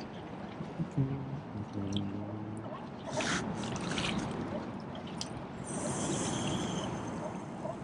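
Water sloshing and wind noise on the shoreline, with a short low hum twice in the first few seconds and brief rushing bursts around the middle.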